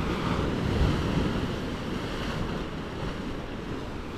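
Sea waves washing and breaking against coral rock, with wind rumbling on the microphone. The wash swells briefly about a second in.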